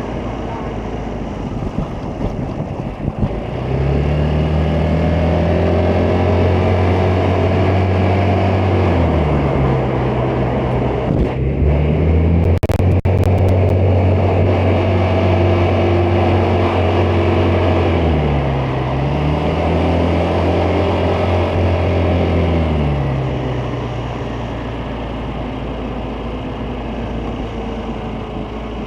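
Vespa GTS 300 scooter's single-cylinder four-stroke engine running under way. Its revs rise from a low note about four seconds in, ease off and pick up again twice, then drop back to a lower, quieter note near the end, with a few sharp clicks about halfway through.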